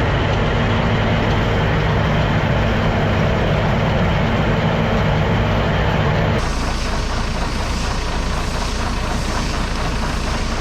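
Farm tractor engine running steadily. About six seconds in, it cuts abruptly to another stretch of machinery running, noisier and with less of a clear engine hum.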